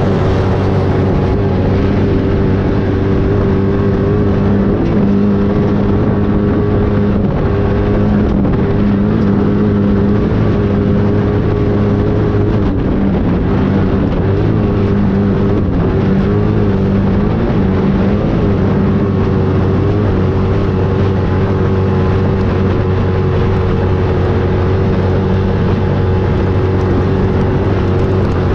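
An engine running loudly at a steady speed, its pitch wavering a little about halfway through.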